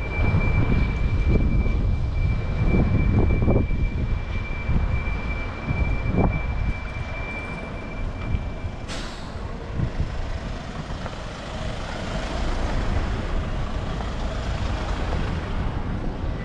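A heavy vehicle's engine rumbling close by in street traffic, with a steady high whine that cuts off about nine seconds in as its air brakes release a sharp hiss, followed by a rushing hiss.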